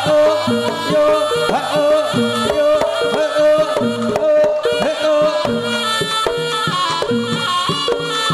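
Javanese jaranan dance music with drums and a melody of short repeating note patterns, loud and continuous, played through a large sound system.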